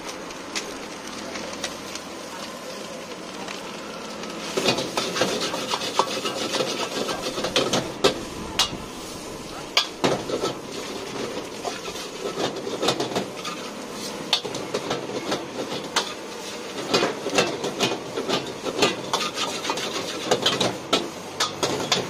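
Steel ladle scraping and clanking against a large metal wok as fried rice is stir-fried and tossed. The fast, irregular scraping and knocking starts about four and a half seconds in.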